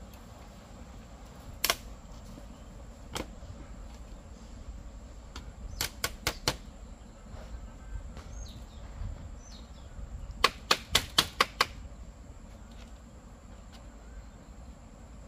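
Sharp knocks or strikes: one alone, another a little later, then a quick run of four, and later a quick run of six.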